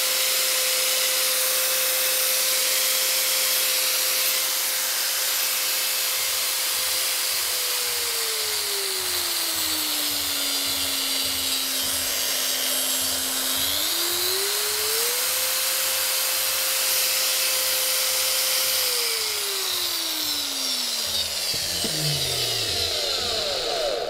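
Metabo WEV 10-125 variable-speed angle grinder, with a spiral-toothed bevel gear in its freshly greased gearbox, running free with a steady whine at full speed. About a third of the way in, its speed is turned down and the pitch drops; it is brought back up to full, and near the end it is switched off and winds down to a stop with a falling pitch.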